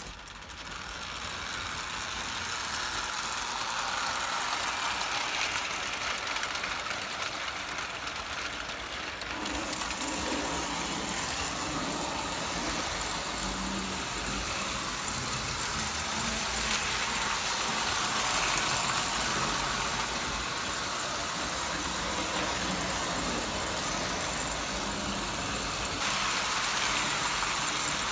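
American Flyer S-gauge model trains running on the layout's track loops, including a steam locomotive: a steady whir of the electric motors and the running noise of wheels on the rails.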